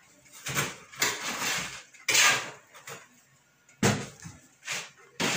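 Hands rolling almond paste into a thin finger on a marble worktop and between the palms: a series of short rubbing swishes with brief pauses between them.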